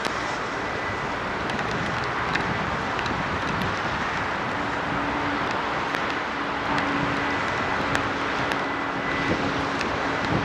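2TE116 diesel locomotives running past under power with a steady engine noise, a low tone coming and going from about halfway through.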